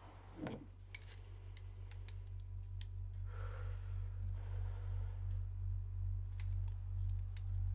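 A very low, pulsing drone that slowly grows louder. In the first second a few clicks and a knock as a revolver is picked up off a wooden table, and a soft shaky breath about three seconds in.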